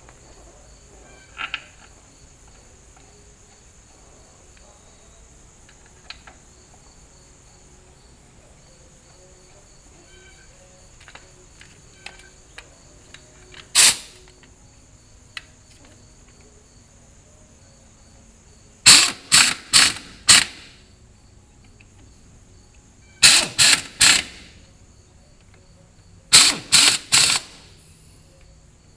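Steady chirping of crickets, then three quick runs of about four short, loud hissing bursts of compressed air from an air chuck filling a tractor tire's inner tube.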